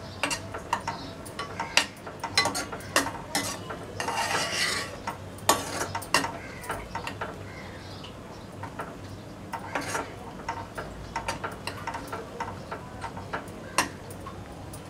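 A metal spoon stirs a thick, sticky lemon pickle in a dark-coated pan, scraping and clicking against the pan at irregular intervals. The pickle is nearly cooked.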